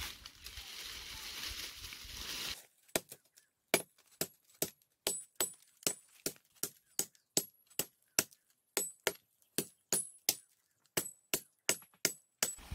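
Steady outdoor background noise that cuts off abruptly about two and a half seconds in. A run of sharp, bright clicks follows, about three a second and slightly uneven, some with a high metallic ring, with silence between them.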